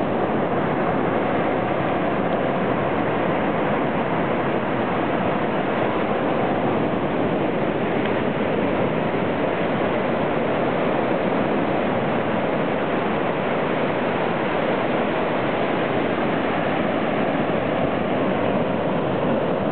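Steady rush of surf on a sandy beach, an even wash of noise with no breaks.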